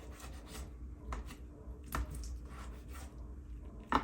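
A knife cutting through tender smoked ribs, giving a few soft, scattered clicks and taps.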